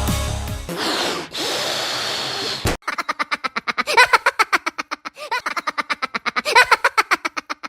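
Music cuts off under a second in, followed by a noisy rushing sound; from about three seconds in comes a fast, high cartoon laugh, 'ha ha ha' in quick pulses about ten a second, with a short break midway.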